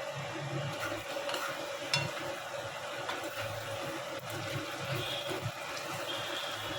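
Chicken curry sizzling steadily in the pan as it is fried down in its spices (the kosha stage), with a light clink about two seconds in.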